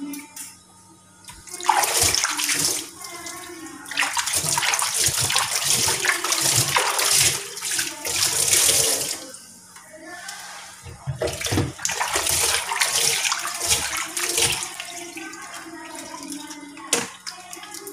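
Kitchen tap running and water splashing in a stainless steel sink as a plastic bottle is rinsed under it, in spells of several seconds with the flow breaking off between them. A few sharp knocks of the bottle against the sink.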